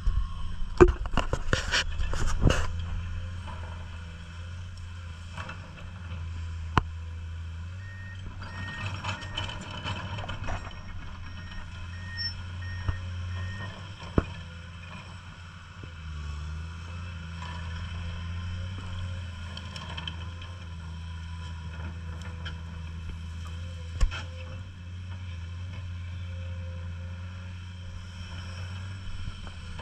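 Komatsu PC210 hydraulic excavator's diesel engine running steadily under work. There are several loud knocks in the first few seconds and single sharp knocks now and then. Partway through comes a run of short, evenly spaced beeps lasting about five seconds.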